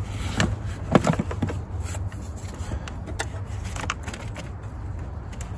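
A car battery being handled and set into its tray: scattered short knocks and scrapes of the battery case and its sleeve, with a cluster of sharp clicks about a second in, over a steady low hum.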